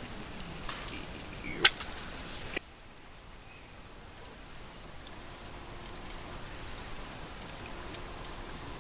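Crackling and sharp clicks over a steady hiss, from a campfire and food being handled at the pot, with one loud snap about one and a half seconds in. About two and a half seconds in the sound drops abruptly to a quieter hiss with only sparse ticks.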